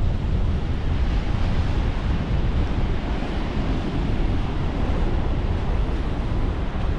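Strong wind buffeting the microphone in a steady low rumble, with ocean surf washing in the background.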